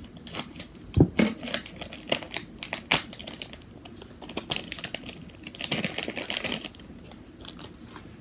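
Plastic packaging of a squishy toy crinkling and crackling as it is handled and opened by hand, in irregular clicks with a denser stretch of crackling near the middle.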